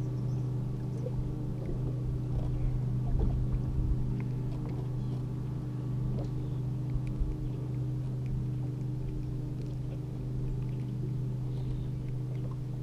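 Steady low hum of a motor on a fishing boat, with a few light knocks and clicks about three to four seconds in.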